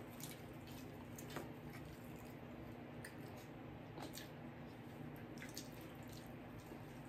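Faint eating sounds: scattered mouth clicks and smacks from chewing, a few each second, over a steady low hum.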